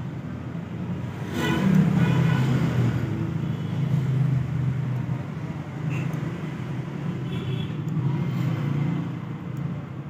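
Steady low mechanical rumble, with faint higher tones laid briefly over it about a second and a half in and again about seven seconds in.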